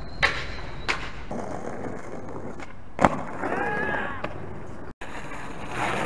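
Skateboard wheels rolling over rough pavement slabs, with a few sharp clacks of the board against the ground. The loudest clack comes about three seconds in.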